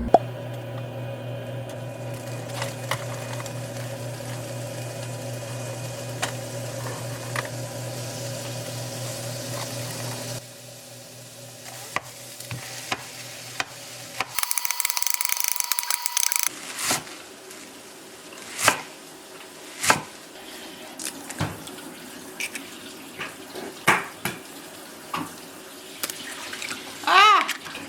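Kitchen work sounds. A steady mechanical hum runs for about ten seconds and then stops. A short burst of running tap water follows, then scattered clinks and knocks of dishes and utensils.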